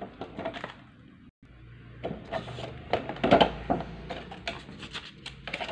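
A clear plastic squishy package being handled, rustling and crinkling, with irregular clicks and knocks.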